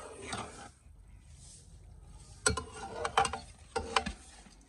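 Slotted metal spoon scraping and clinking against a steel karahi while stirring boiled rice into ghee-and-sugar syrup. There are a few short bursts of scraping in the second half.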